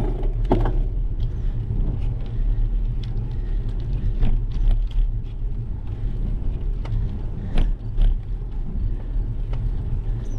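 Wind buffeting a bike-mounted GoPro's microphone as the bicycle rolls along an asphalt path: a steady low rumble, with tyre noise and scattered clicks and rattles from the bike.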